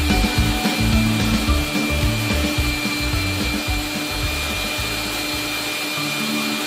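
Electric mixer grinder running at speed, its stainless steel jar grinding wet chutney: a steady whirring rush with a thin steady whine.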